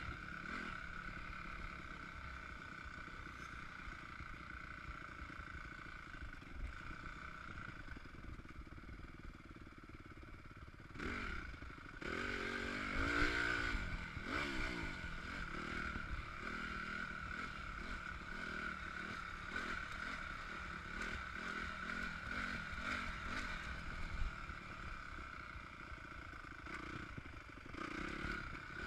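Engine of a 2015 Honda CRF 250 motocross bike, a four-stroke single, running as it is ridden around a dirt track. Its pitch rises and falls with the throttle, with louder revving about halfway through.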